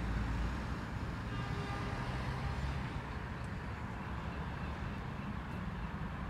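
Steady low rumble of road traffic in an urban street, with faint high tones briefly in the first few seconds.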